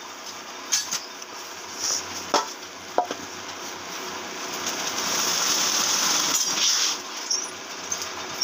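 Rice being stirred and roasted in iron woks over clay ovens to make puffed rice (muri): a steady frying hiss that swells about halfway through, with a few sharp knocks of the stirrer on the pan.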